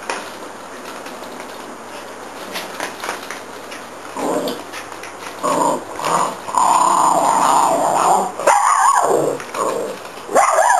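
Small dog growling at play, in short bursts that become a sustained growl about halfway through, then two higher sliding cries near the end.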